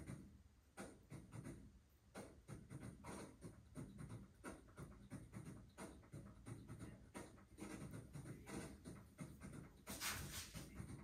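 Faint, irregular scratching and rubbing of hands and tools working clay, with a louder scratchy stretch near the end.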